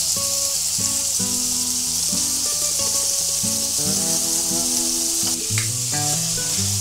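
Hamburger patties sizzling in a frying pan, a steady hiss, over background music.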